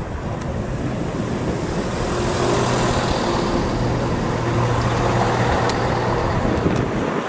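A train running through the station: a loud, steady rumble with a low hum, growing louder toward the middle.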